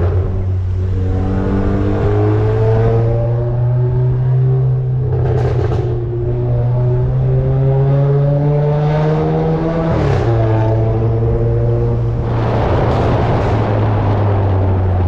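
Cupra car engine held at raised revs and loud through its exhaust, the pitch creeping slowly upward and then dropping back about ten seconds in. Several short, sharp bursts of noise cut through it, about five, ten and thirteen seconds in.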